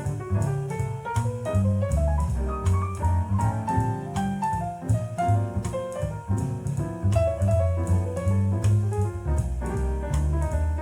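Instrumental jazz playing through JBL 4307 studio monitors driven by a Triode TRV-88SE valve amplifier: piano over walking bass and drum kit, with a steady beat.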